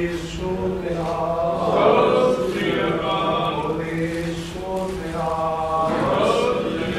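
A group of voices chanting together in long held phrases that rise and fall, with brief breaks between phrases.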